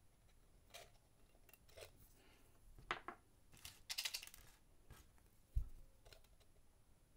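Faint scattered clicks and light scrapes of small tools working inside an opened portable MiniDisc player, picking hair out of the mechanism. A short burst of rattling clicks comes about four seconds in, and a single dull bump near the end.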